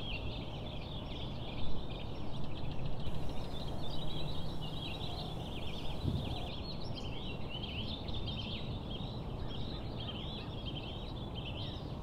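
Many birds chirping and twittering together in a dense morning chorus over steady low background noise, with one brief louder sound just under two seconds in.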